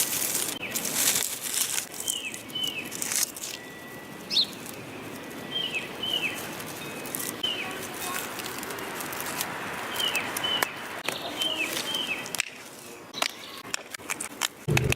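A bird calling over and over with short, down-slurred chirps against a steady rush of wind, with sharp clicks and rustling near the start and again near the end.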